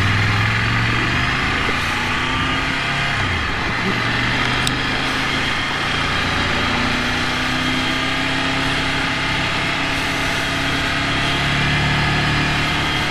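Ducati Monster 797's air-cooled L-twin engine running as the motorcycle is ridden, under a steady rush of wind noise. The engine note dips briefly about three and a half seconds in, then picks up again.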